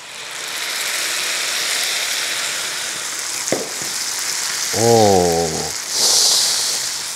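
Blended red chili paste sizzling in hot oil as it is poured onto fried garlic and shallots in a frying pan and spread with a spatula. The sizzle rises as the paste goes in and flares briefly about six seconds in.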